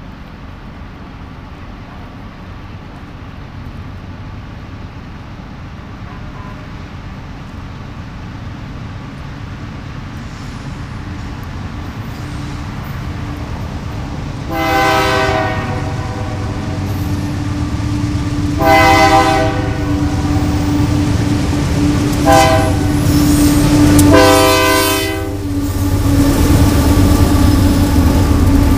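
Horn of the lead Union Pacific GE AC4400CW diesel locomotive sounding the grade-crossing signal: long, long, short, long. Under it the rumble of the approaching diesel locomotives grows steadily louder, and they are passing close by near the end.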